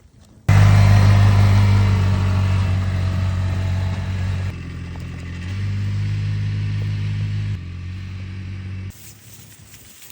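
A vehicle engine running steadily at a low, even pitch. It starts abruptly, changes level in sudden steps several times and cuts off near the end.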